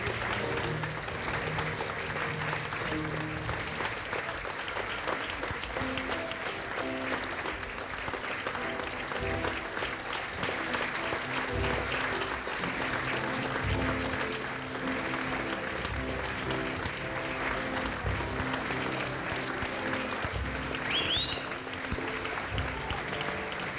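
Audience clapping steadily, with curtain-call music playing underneath: a melody of held notes that changes pitch.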